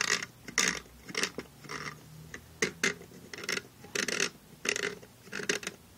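Plastic Lego parts rubbing and scraping as a hand turns the model's spinning mechanism, in about a dozen short, irregular strokes.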